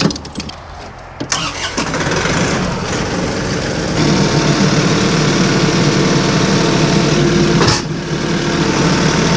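Old Massey Ferguson tractor engine running up to higher speed and working under load as its lift raises a heavy 1600 lb log. It gets louder about two seconds in and again about four seconds in, with a brief dip and a sharp knock near the end.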